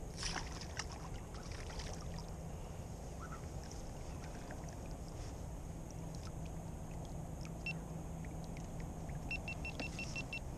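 Fishing rod and baitcasting reel handled in a kayak: scattered small clicks and knocks, then just over nine seconds in a quick run of about seven even ticks from the reel. Under it all, a steady low rumble.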